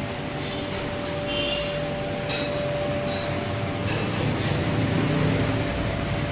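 Steady background hum of a restaurant dining room with a constant thin whine. A few light clatters come between about two and four and a half seconds in.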